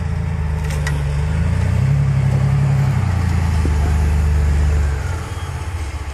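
Off-road vehicle engine running close by with a deep rumble. It pulls harder and louder about two seconds in, eases off near the end, then cuts off suddenly.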